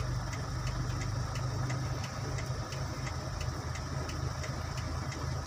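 Vehicle engine idling, a steady low hum heard from inside a stopped car's cabin, with a light, even ticking about three times a second.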